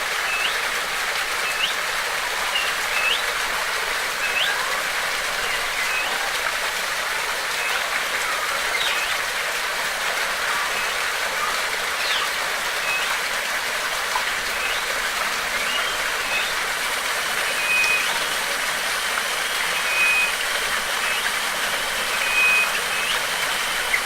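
Steady rush of flowing water, likely a stream or small waterfall, with birds calling over it in short, repeated chirps. A thin, steady high-pitched whine joins about two-thirds of the way in.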